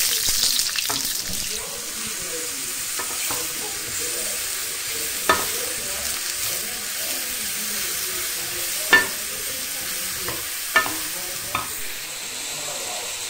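Onions and sliced mushrooms sizzling in hot oil in a frying pan while being stirred with a wooden spoon; the sizzle is loudest at the start, then settles to a steady hiss. A few sharp knocks of the spoon against the pan stand out, about five, nine and eleven seconds in.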